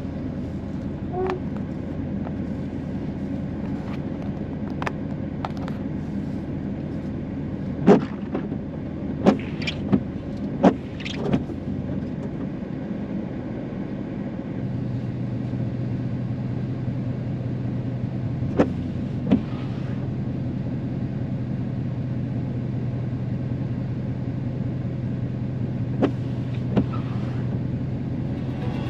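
Road and engine rumble inside a vehicle on a gravel road, with a scattering of sharp knocks. About halfway through, a steady low engine hum sets in and holds to the end.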